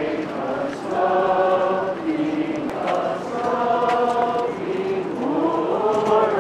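A crowd of people singing a slow hymn together as they walk in procession. The voices hold long notes one after another.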